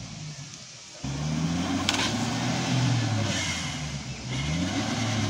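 Maruti Suzuki Omni van's small three-cylinder petrol engine revving up and down under load as the stuck rear-wheel-drive van strains to climb out of the field. It picks up sharply about a second in.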